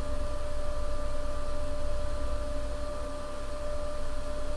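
Steady electrical hum and hiss of the recording setup, with a constant mid-pitched tone and a low rumble underneath.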